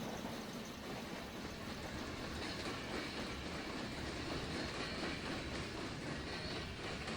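A train rolling past: a steady rumble and rattle of wheels on the rails.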